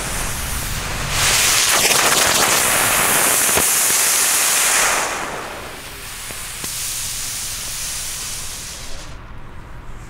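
Xplode Smoke Bird smoke firework hissing as it pours out blue smoke while lying on the ground instead of flying up, which the user thinks comes from laying it on the wrong side. The hiss grows loud about a second in, drops back after about five seconds and dies out near the end.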